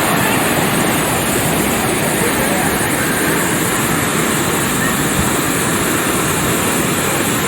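Loud, steady rush of falling water from the Sgwd yr Eira waterfall, heard close to the fall.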